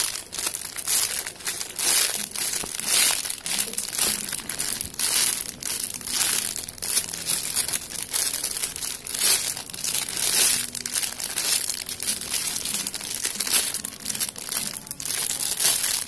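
Clear plastic packaging bag crinkling almost continuously, in irregular crackles, as a hand squeezes and turns a bagged foam squishy toy.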